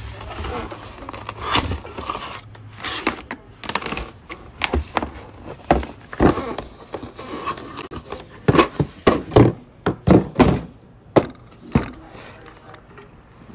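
Irregular knocks, taps and thunks of objects being handled, scattered at first, then coming thick and loud for a few seconds past the middle.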